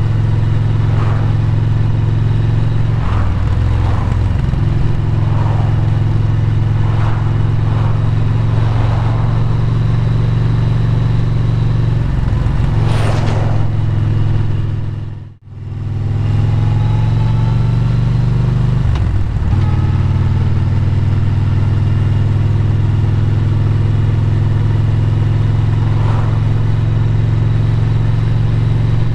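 Motorcycle engine running steadily at cruising speed, heard from the rider's seat with wind and road noise. About halfway through the sound dips out briefly and comes straight back.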